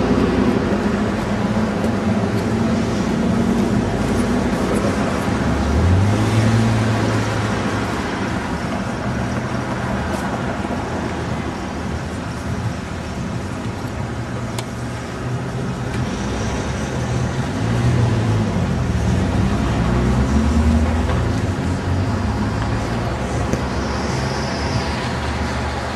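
City street traffic: a steady rumble of vehicles passing, with engine sounds swelling as a vehicle goes by about a quarter of the way in and again past the middle.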